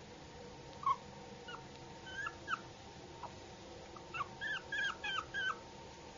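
Yorkshire terrier puppy whimpering in short, high-pitched whines. A few come scattered at first, then a quick run of about six near the end.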